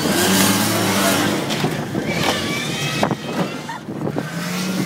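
Demolition derby car's engine running and revving, heard from inside the cabin, with a couple of short knocks.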